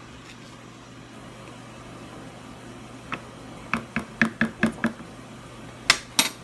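Small hard taps on a container, like a spoon against a bowl during slime making: one tap, then a quick run of about six at roughly five a second, then two louder knocks near the end.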